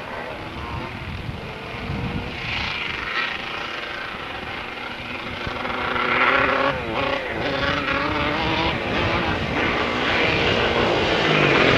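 Engine of an off-road three-wheeled ATV revving up and down as it rides toward the microphone, getting louder over the second half.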